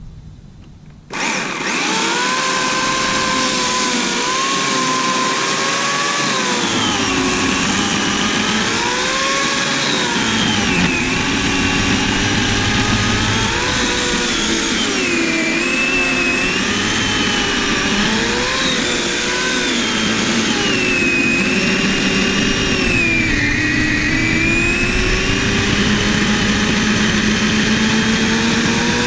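Bauer 16-inch, 14.5-amp electric chainsaw starting about a second in and cutting into a thick tree stump. Its motor whine wavers up and down in pitch as the chain's load in the wood changes.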